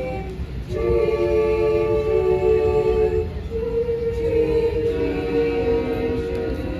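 A cappella choir singing held chords, with a brief break about half a second in and a new phrase starting around three and a half seconds. A steady low rumble sits underneath.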